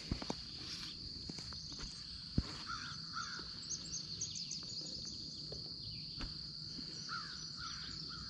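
Riverside outdoor ambience: a steady high insect drone, with short bird calls twice and a few sharp clicks near the start.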